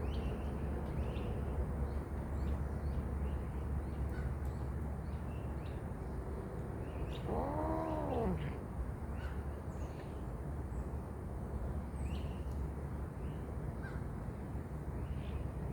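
A cat meows once, about halfway through: a single call about a second long that rises and then falls in pitch, over a steady low rumble.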